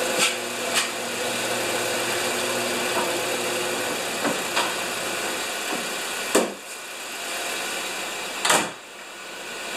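Kia Soul engine idling with a steady hum. The car's hood is slammed shut about six seconds in, and a second heavy thud follows about two seconds later.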